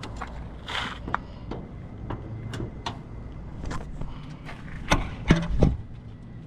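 Scattered clicks and knocks over a low steady rumble, with a few louder knocks about five seconds in.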